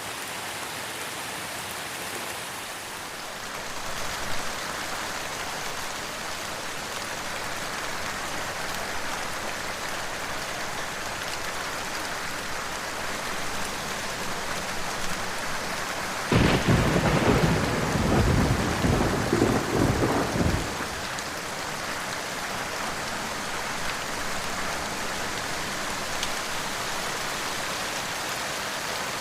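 Steady rain falling, with a clap of thunder a little past halfway that rumbles for about four seconds before the rain carries on alone.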